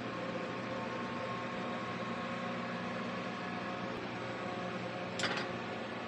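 Microwave oven running with its outer casing off: a steady hum from the transformer and cooling fan. A short sharp click comes about five seconds in.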